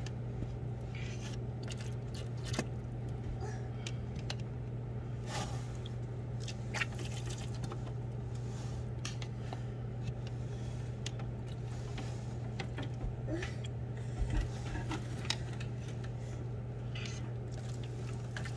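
Scattered small clicks, taps and squishes of a turkey baster and the plastic-and-styrofoam incubator being handled as water is squirted into the incubator's water channels, over a steady low hum.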